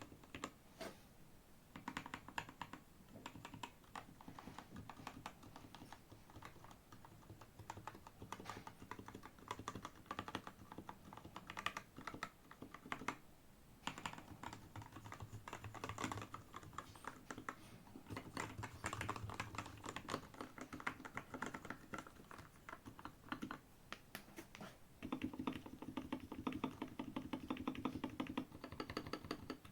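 Steady typing on a 75% mechanical keyboard with Gateron G Pro Milky Yellow linear switches (50 gf) and XDA-profile keycaps: a rapid stream of keystroke clicks with short pauses, growing louder and fuller from near the end.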